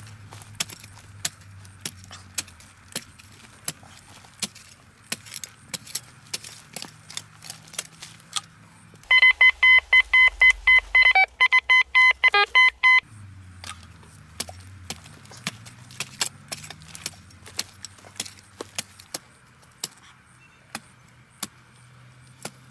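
A long-handled spade chopping and scraping into dry, stony soil in repeated sharp strikes. About nine seconds in, a metal detector gives about four seconds of rapid pulsed beeping, about four beeps a second, as it is swept over the hole, signalling buried metal; the digging then resumes.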